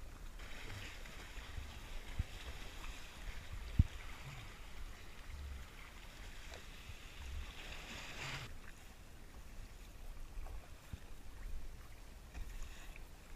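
Sea kayak being paddled on open water: water rushing and splashing around the paddle blades and the RTM Tempo's hull, with a low rumble of wind on the microphone. The water rush drops away about two-thirds through, and a single sharp knock sounds near four seconds in.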